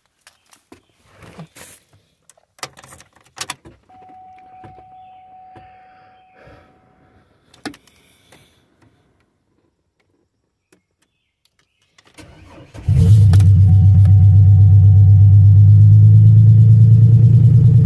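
A few clicks and knocks and a steady tone lasting a few seconds; then, about twelve seconds in, the 2002 Oldsmobile Bravada's 4.2-litre inline-six cranks briefly, catches and runs loud and steady on a cold start after sitting overnight.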